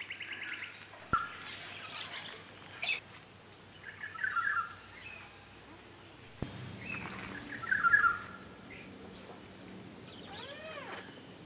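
Birds chirping and calling. There are short bursts of chirps about four seconds in and again about eight seconds in, and a run of rising-and-falling whistled notes near the end.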